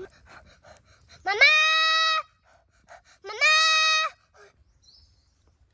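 Two loud, held screams, each just under a second long, rising sharply in pitch at the start and then staying level, about a second apart.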